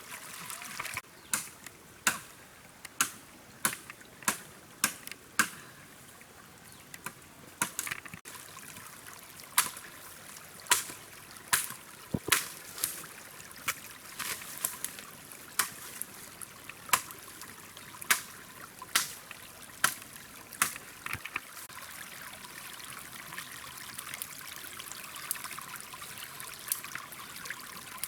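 Stream water trickling steadily, with a run of sharp knocks, about one a second, for most of the first twenty seconds, then only the water.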